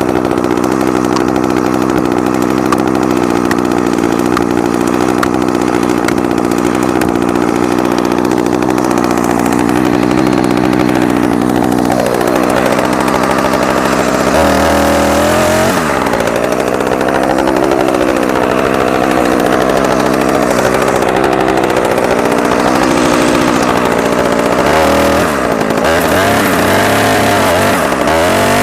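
Two-stroke chainsaw running at high revs, cutting steadily for about twelve seconds. The engine speed then drops and keeps rising and falling under changing throttle and load while cutting into the tree for the felling notch and back cut.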